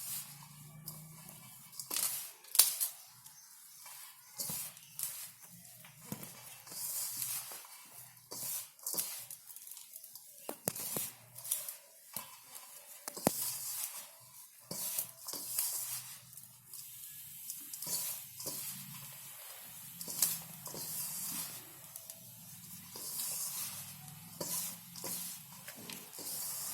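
Hands mixing a dry flour mixture in a bowl: irregular soft rustling and scraping strokes, with a few light sharp knocks.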